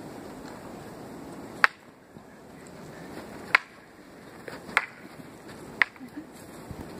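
Carved wooden practice swords clacking together in a sword sparring bout: four sharp wooden knocks at uneven intervals, the first about a second and a half in.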